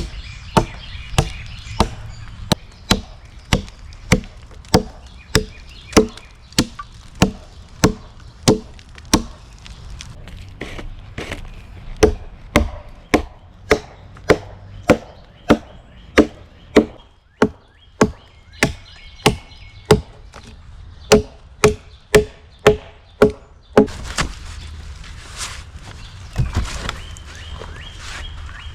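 Axe chopping into a log to cut a notch, with steady strokes about two a second. The strokes pause briefly partway through and stop a few seconds before the end, followed by softer rustling.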